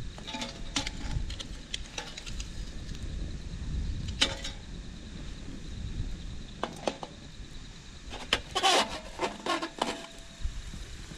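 Metal tongs clinking against a small camp frying pan as food is placed and moved in it: a few scattered clinks, then a denser clatter near the end.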